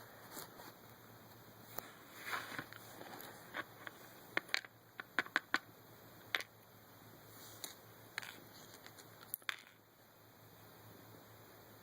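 Scattered light clicks and taps of small metal lock parts being handled, with a quick cluster of clicks about four to six seconds in and another sharp click about nine and a half seconds in.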